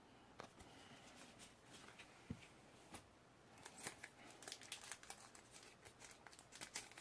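Faint crinkling and clicking of a Pokémon booster pack wrapper and trading cards being handled, sparse at first and busier from about halfway through.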